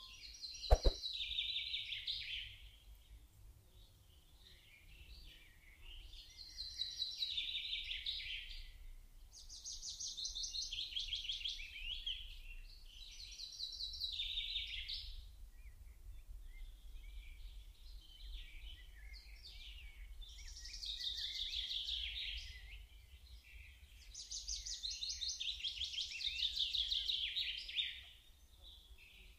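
A songbird singing a high, trilled phrase that falls in pitch, repeated about every three to four seconds, over a faint low hum.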